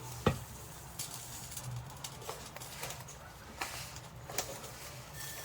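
Dry couscous being poured into a pot: one sharp knock a moment in, then faint rustling and a few light clicks.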